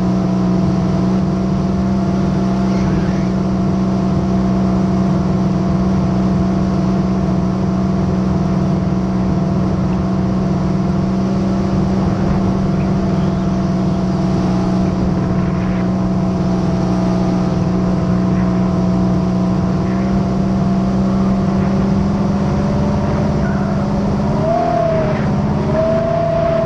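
Jet ski engine running at a steady cruising speed, its pitch holding even, with a short dip and recovery in pitch near the end.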